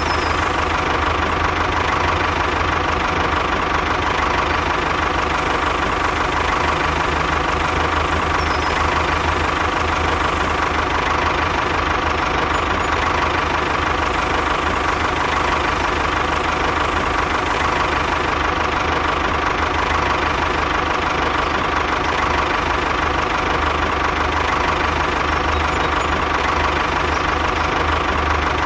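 A motor running steadily at a constant speed, a level drone with a high whine over a low hum.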